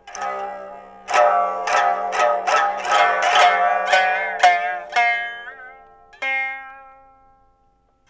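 Biwa (Japanese lute) plucked with a plectrum: a single stroke, then a quick run of about ten strokes, then a few slower notes bent in pitch that die away.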